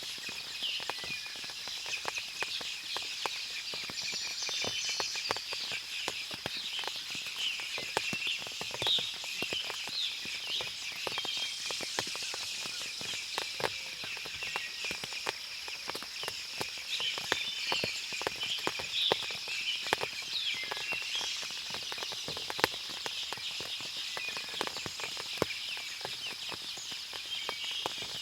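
Forest after rain: birds chirping over a steady high hiss, with many irregular small clicks of water dripping from the trees.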